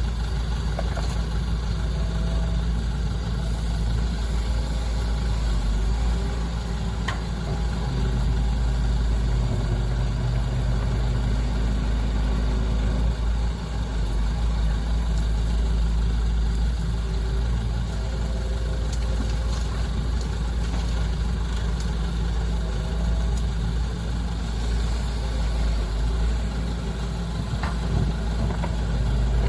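Heavy diesel engines of excavators and trucks running steadily, the engine note stepping up and down now and then, with a few faint knocks.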